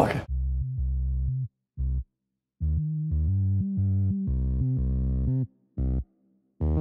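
Electronic music with synthesizer and deep bass notes, played in short chopped phrases that cut off abruptly into total silence twice before starting again.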